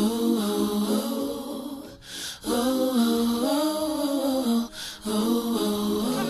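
A singing voice with little or no accompaniment, sung in long, slow phrases with two short breaks between them.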